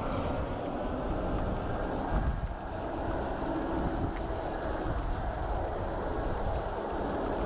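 Steady rush of wind on the microphone with tyre and road noise from a bicycle rolling along a paved road, with a brief louder bump about two seconds in.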